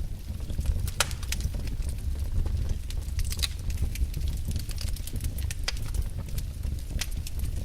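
Wood fire in a fireplace crackling: irregular sharp snaps and pops over a steady low rumble of the flames, with one louder snap about a second in.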